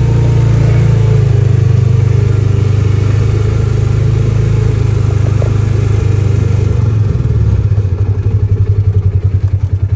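Engine of a small open utility vehicle running steadily while driving. About seven seconds in the engine note drops to a slower, evenly pulsing beat.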